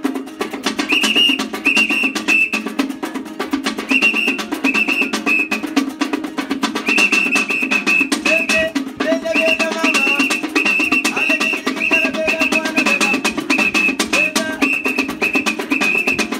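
Street music: a small improvised drum made from a painted tin beaten in a fast, steady rhythm over a strummed small guitar, with a high whistled tune of short repeated notes coming and going in phrases.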